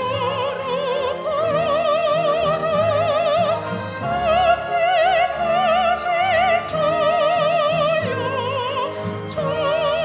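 A woman soloist singing in a classical, operatic style: long held high notes with wide, even vibrato, a new note every second or few, over instrumental accompaniment.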